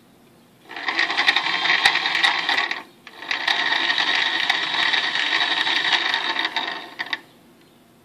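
Small electric motor of an RC servo test rig running with a gritty buzz, twice: a run of about two seconds, a short stop, then a run of about four seconds.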